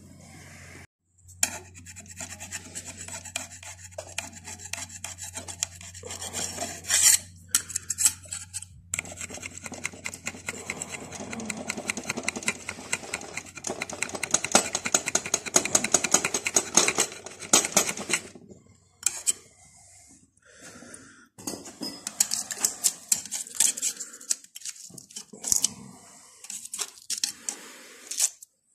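A hand tool scraping and rasping on metal in quick repeated strokes, in several spells broken by short pauses, with light clinks of tools.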